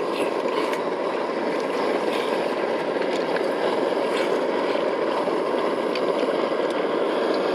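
MSR XGK multi-fuel stove burning diesel at full flame under a pot, a steady rushing burner noise. A spoon stirring the frying chicken makes faint light scrapes against the steel pot.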